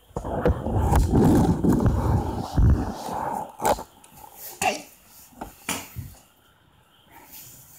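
Heavy rubbing and bumping right on a phone's microphone as it is handled, followed by about five sharp knocks and taps, then quiet room tone near the end.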